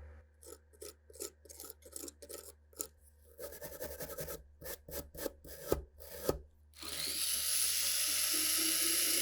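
Quick back-and-forth scrubbing strokes by hand on rusty revolver parts, about three a second, to strip the rust. About seven seconds in, a steady, louder hiss takes over.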